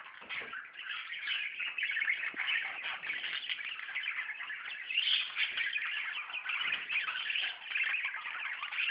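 Budgerigars chattering and warbling continuously, many short overlapping chirps from several birds at once.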